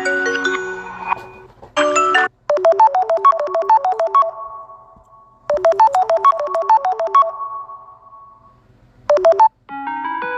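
Samsung Galaxy S21 ringtone: a short, quick melodic phrase of bright pitched notes plays twice, about three seconds apart, each time ringing out and fading. Brief snippets of other tones cut in abruptly before it and near the end.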